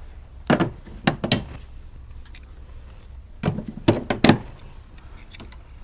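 Pliers working knockout plugs out of a steel electrical panel box: about six sharp metal clicks and knocks, three in the first second and a half and three more around four seconds in.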